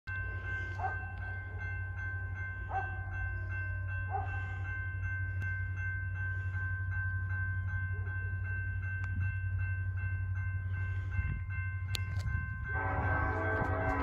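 Railroad grade-crossing bell ringing in a fast, even rhythm while the signals flash. Near the end a BNSF SD70ACe diesel locomotive's multi-chime air horn starts blowing a long, loud chord over a low rumble.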